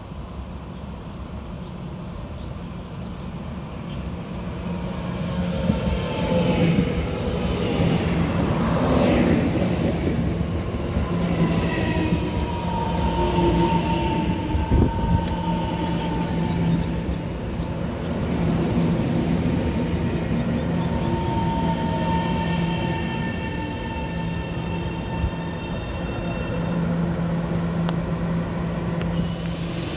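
Taiwan Railway electric multiple unit EMU731/732 pulling into a station platform: the rumble of its wheels on the rails grows louder as it arrives. Held electric whines from its traction equipment come and go while it slows and stands, over a steady low hum.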